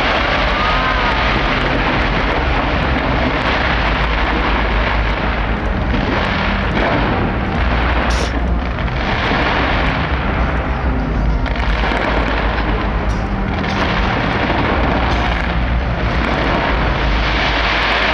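Dense, unbroken barrage of fireworks bursts: many sharp cracks and booms overlapping over a deep continuous rumble, with a few short whistles near the start.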